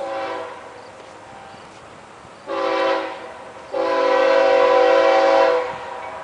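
A diesel locomotive's Nathan K-5HLL five-chime air horn sounding three blasts: a short one at the start, another short one about two and a half seconds in, then a long one of about two seconds. The lead unit is a GE ES44DC.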